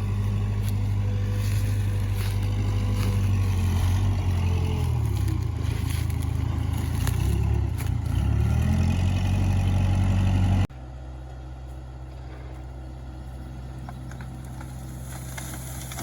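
Case 580 Super K backhoe's four-cylinder diesel engine running hard, its pitch sagging and recovering a few times as it is loaded. Two-thirds of the way through the sound drops abruptly to a quieter, steady engine note.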